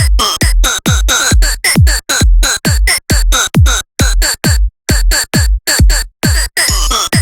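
Electronic dance music with a steady, fast drum-machine kick, each thump dropping in pitch, under sharply chopped, stuttering synth sounds, with two brief drop-outs midway.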